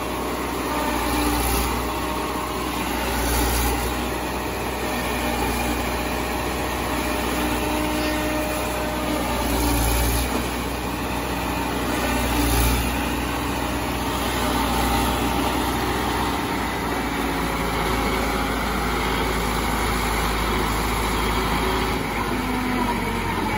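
Sonalika tractor's diesel engine running steadily, driving a tractor-mounted forage harvester for cutting green maize, with a few brief swells in loudness.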